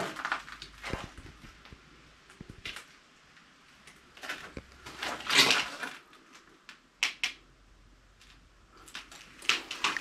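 Footsteps crunching and scraping over debris on a floor, with scattered knocks and clicks. The longest scrape comes about five seconds in, and two sharp clicks follow about two seconds later.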